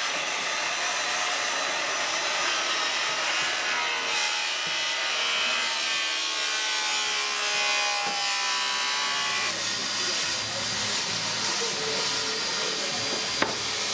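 A saw cutting through wood, a steady continuous cutting noise with a single sharp click near the end.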